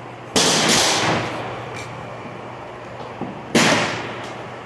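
Gunshots: two in quick succession, then a third about three seconds later, each echoing briefly under the covered firing line.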